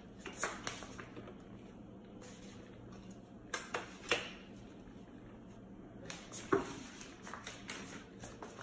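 Handling noise from a baby cradle swing being assembled: the fabric bassinet and its frame are moved about, with scattered knocks and rustles, the loudest about six and a half seconds in.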